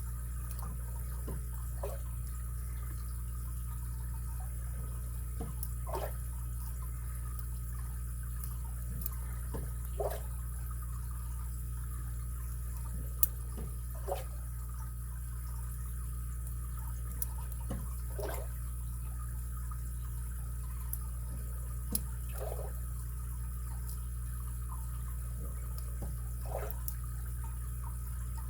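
Faint, scattered clicks and light scrapes, several seconds apart, of a lock pick working the pin tumblers of a Schlage SC1 5-pin lock cylinder, over a steady low hum.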